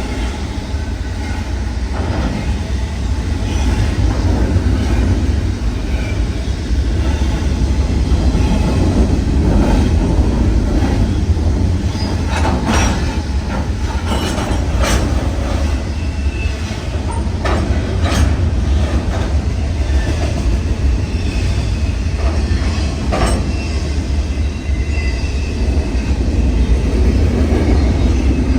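CN freight train pulling away from a stop, its cars rolling past with a steady low rumble. Several sharp metallic clanks come a little before halfway and again later on, with faint brief wheel squeals.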